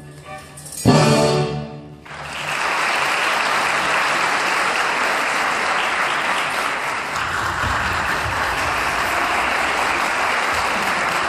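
Orchestra's final chord, then a theatre audience applauding steadily from about two seconds in.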